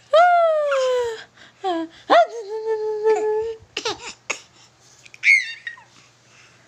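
Baby squealing and cooing happily: several drawn-out high vocal sounds, the first falling in pitch, another held steady for over a second, with a couple of sharp clicks about four seconds in.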